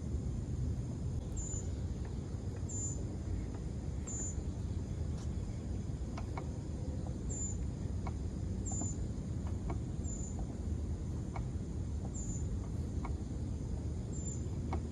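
Outdoor ambience: a steady low rumble, with a short high chirp repeating about every second and a half and a few faint clicks.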